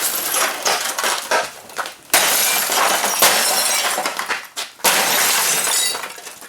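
Sony Trinitron CRT computer monitor being smashed apart: glass shattering and pieces crashing and clattering, with sharp new blows about two and five seconds in.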